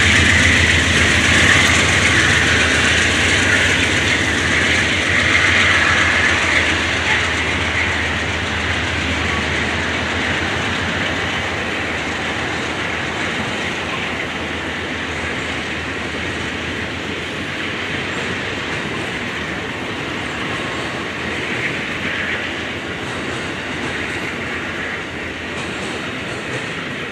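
Amtrak bi-level passenger cars rolling past at speed, the wheels clicking over the rail joints with a steady rumble. A high hiss from the wheels in the first several seconds fades, and the whole sound slowly gets quieter.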